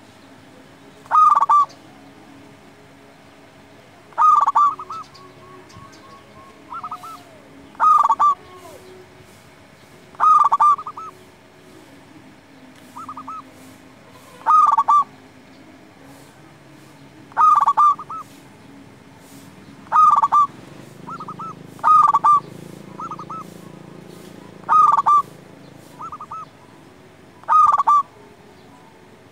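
Zebra dove (perkutut) cooing over and over: about ten loud calls, each a short run of notes, every two to four seconds, with fainter short coos in between.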